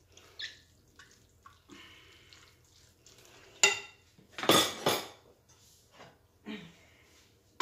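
Soft scraping of a plastic spatula in a bowl of rice and mince at first. About three and a half seconds in comes a sharp ringing clink of dishware, then a second later a louder clatter of dishes being handled.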